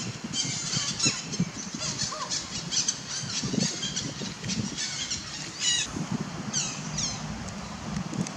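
Birds calling: rapid, high-pitched chirps that sweep downward, several a second, over a low background rumble.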